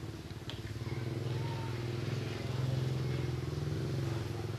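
A motor vehicle's engine running steadily at low revs, getting a little louder around the middle.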